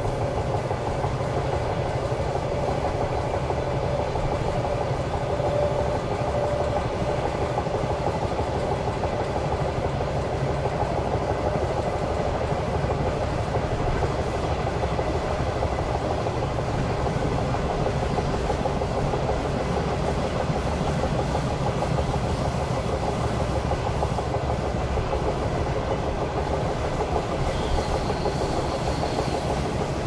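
Moving train running steadily: a constant low rumble with the rush and rattle of wheels on rails.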